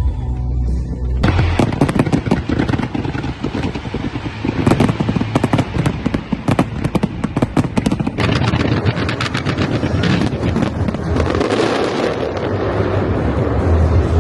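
Fireworks going off in rapid strings of sharp bangs, like machine-gun fire, starting about a second in; past the middle the bangs turn into a finer, denser crackle with a hiss. Low music bass sits under the opening second.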